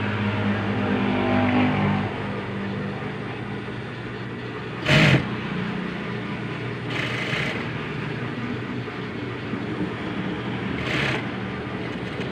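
Sewing machine motor running. It is louder for the first two seconds or so, then hums steadily. A short, sharp noise comes about five seconds in, and softer brief noises follow later.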